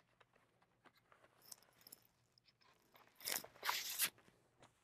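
A record's paper inner sleeve sliding out of a cardboard gatefold LP jacket: a couple of faint clicks, then a brief scraping rustle about three seconds in.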